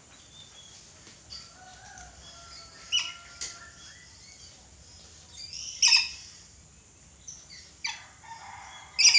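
Red lory giving a series of short, sharp shrieking calls, the loudest about six seconds in, with a couple more close together near the end.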